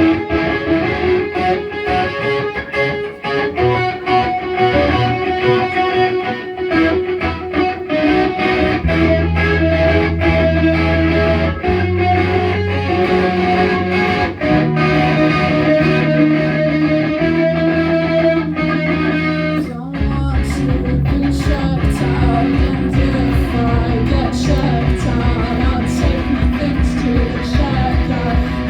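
Live rock band playing an original song: a guitar riff opens it, bass notes join about nine seconds in, and the drums and full band come in about twenty seconds in.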